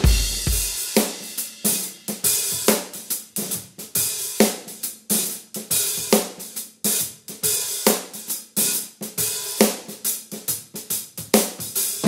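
Groove Drum Co. Pancake drum kit, with its shallow-shell drums, played in a steady groove and heard through the overhead microphones alone. Cymbals and hi-hat are to the fore, with snare strokes and little bass drum.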